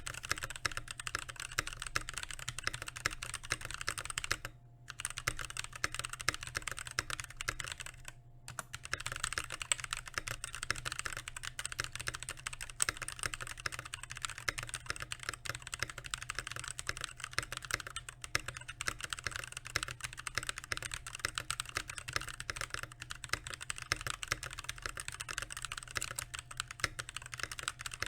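Rapid, continuous typing on a Keychron K6 mechanical keyboard fitted with Glorious Holy Panda tactile switches, the keystrokes running into a dense clatter, broken by two short pauses about four and a half and eight seconds in.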